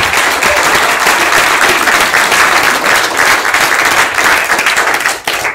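Audience applauding, a dense spread of many hands clapping that dies away at the end.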